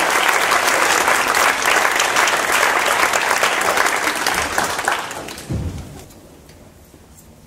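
Theatre audience applauding, the applause dying away about five to six seconds in, with a low thud as it fades.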